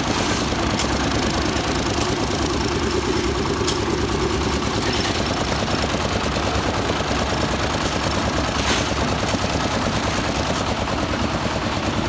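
Portable concrete mixer's engine running steadily with its drum turning, while it is loaded and tipped to pour concrete. A few sharp knocks stand out over the steady engine noise.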